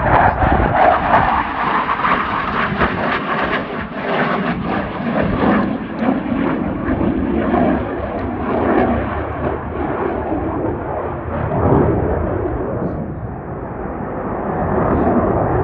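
Eurofighter Typhoon's twin EJ200 turbofan jet engines in flight: a loud, continuous rush of jet noise with a crackling edge, swelling and easing several times as the aircraft passes.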